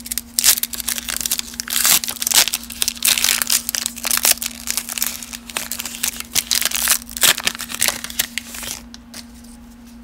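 Foil wrapper of a baseball card pack being torn open and pulled apart by hand, crinkling and crackling, dying down about nine seconds in.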